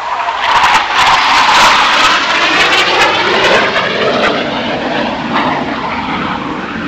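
BAE Hawk T1 jet trainer's Adour turbofan as the aircraft flies past. The jet noise swells to its loudest about one to two seconds in with a sweeping, phasing whoosh, then fades slowly as the jet climbs away.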